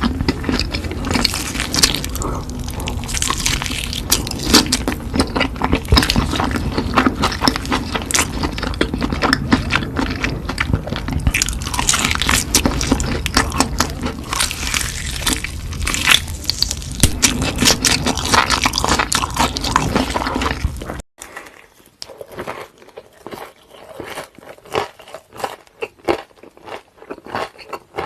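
Close-miked eating: dense crunching, biting and chewing of crispy fried food. About three-quarters of the way in a low background rumble cuts off abruptly, and the chewing goes on quieter and sparser.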